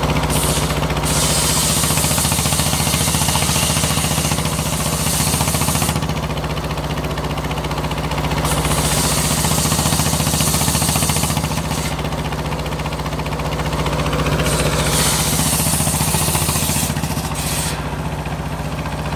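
Large engine-driven circular saw ripping a log of petai wood: the engine drones steadily, and the noise of the blade cutting through the wood comes in three times for a few seconds each, dropping back between cuts to the engine and the blade spinning free.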